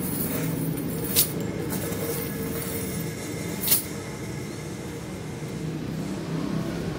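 Steel chainmail clinking twice, two short sharp metallic clicks about a second in and near the middle, as the mail patch is settled against a tree trunk. A steady low background rumble runs under them.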